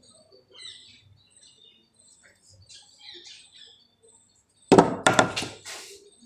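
Faint bird chirps, then a loud clatter of several sharp knocks about three quarters of the way through.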